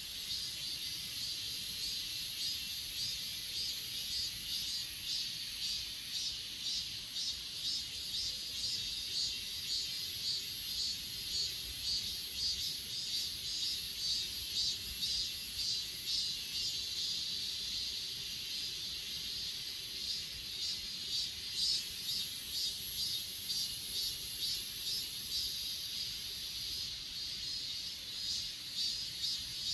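Chorus of grass insects such as crickets: a steady, very high shrill with a pulsed chirping, about two to three chirps a second, running through much of it.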